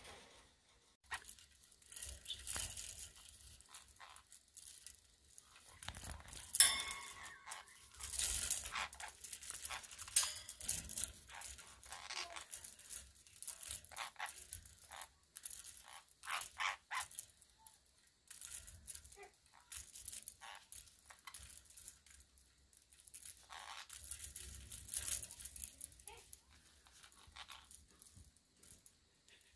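A young green-cheeked conure wrestling a small toy: irregular clicking, scraping and knocking of the toy against beak and cage, with a short squeaky kissing sound about seven seconds in.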